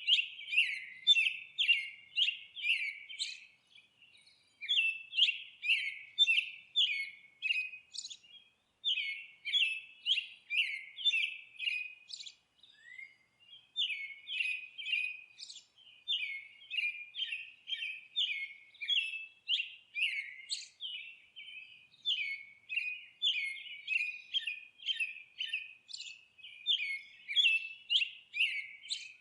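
A small songbird chirping: short, high, downward-slurred notes repeated about two to three times a second in runs of several seconds, broken by brief pauses.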